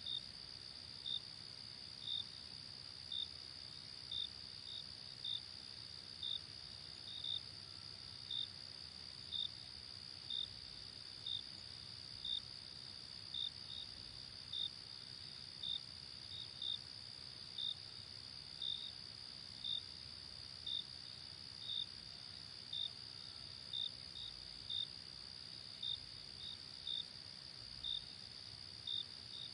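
Insects chirping at night-chorus pace: a steady high trill that never stops, with a separate short chirp repeating about once a second, sometimes in quick pairs.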